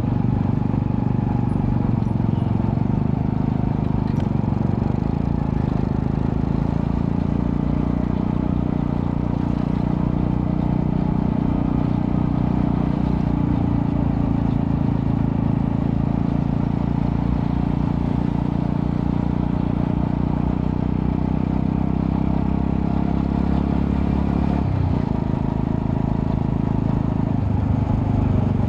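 Honda Astrea Prima 110cc single-cylinder four-stroke engine running through a custom underbelly exhaust with resonator, a steady low exhaust note; the note dips and changes pitch near the end.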